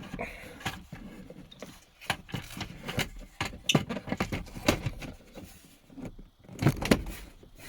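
Irregular clicks, knocks and scrapes of car parts being handled and fitted by hand during the shifter reassembly, with a louder cluster of knocks near the end.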